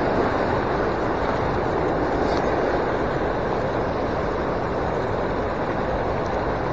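Water spilling over a small concrete weir, a steady unbroken rushing.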